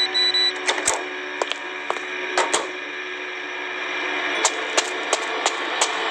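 Irregular sharp clicks and knocks over a steady electronic hum, with a short run of rapid high-pitched beeps right at the start.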